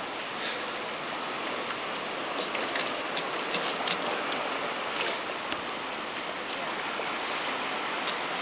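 Steady rush of water with a few faint small splashes and ticks.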